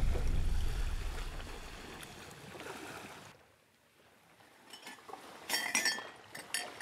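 Music fades out over the first few seconds. After a brief hush, glass mugs clink together as they are handled, in a few quick clinks past the middle and again near the end.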